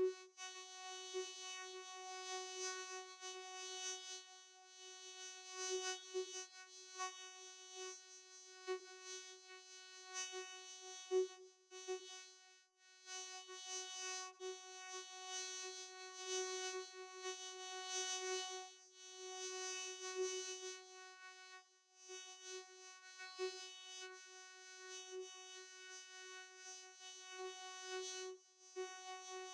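Vocoder sound effect: one held, buzzy electronic tone that never changes pitch, rich in overtones, its loudness pulsing and wavering irregularly as if shaped by a voice, with a couple of short dropouts.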